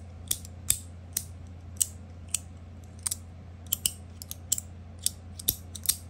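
A metal fidget toy worked by hand, giving sharp, irregular clicks a few times a second, coming quicker in the second half.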